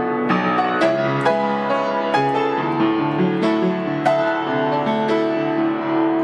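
Solo piano playing a melody over sustained chords, notes struck roughly every half second and left to ring.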